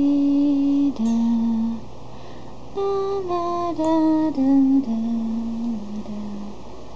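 Background music: a slow melody of held, voice-like notes falling step by step, in two phrases with a short lull between them.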